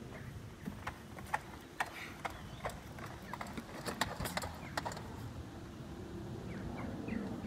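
Kettler Kettcar Barcelona pedal go-kart rolling over a skatepark ramp, its wheels and frame rattling with a run of irregular sharp clicks and knocks over a steady low rumble.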